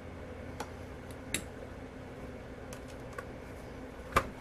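A few scattered small clicks and taps of small parts being handled during a repair, with one louder tap near the end, over a low steady hum.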